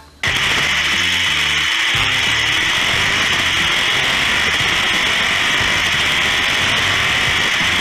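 Onboard sound of an open-wheel race car at speed, a steady engine and wind noise that cuts in abruptly just after the start, over background music with a moving bass line.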